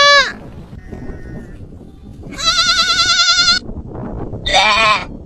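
Bleating livestock: the end of one bleat at the start, then a long quavering bleat of about a second, and a shorter bleat near the end.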